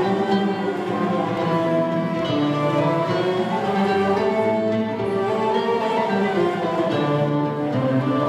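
Turkish classical music ensemble of plucked and bowed strings (ouds, kanun, violin and cello) playing a melody in the makam kürdilihicazkâr, many instruments sounding together in unison lines.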